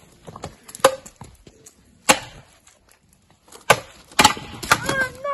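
Wooden poles clacking against each other in a staged stick fight: a few sharp wooden knocks with gaps between them, coming faster near the end.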